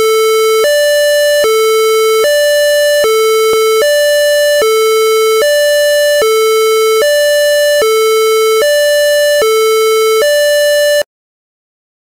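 Electronic two-tone siren, loud and alternating between a low and a higher tone about every 0.8 seconds; it cuts off suddenly about 11 seconds in.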